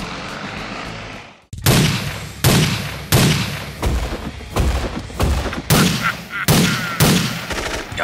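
Cartoon gunfire sound effects: about nine loud shot-like bangs, one every two-thirds of a second or so, each with a booming tail. They follow a steady rushing noise that cuts off suddenly about a second and a half in.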